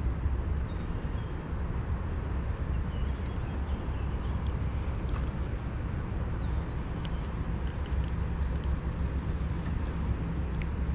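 Outdoor ambience: a steady low rumble with small birds chirping in quick, high, repeated calls through most of it.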